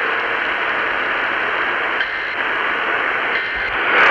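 Radio receiver putting out steady static hiss, the sound cut off sharply above the upper middle range as is usual for a narrow radio channel.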